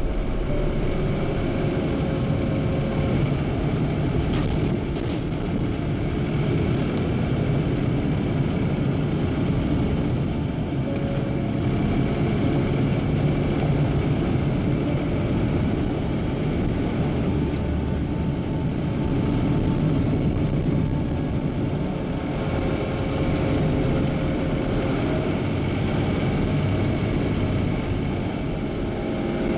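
Jeep driving along a road, its engine and tyre noise running steadily with slight rises and falls in loudness.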